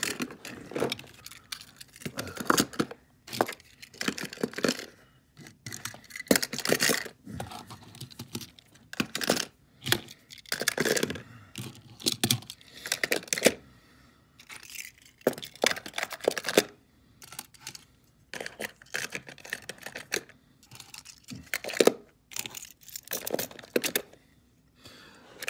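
Die-cast metal toy cars being pushed aside and handled on a tabletop, clinking against each other and sliding with irregular clicks, knocks and short scrapes.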